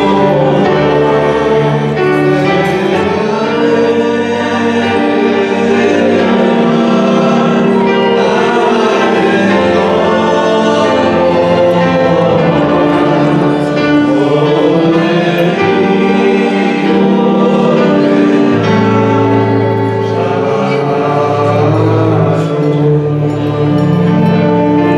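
A choir of several voices singing a melody, holding long notes in chords.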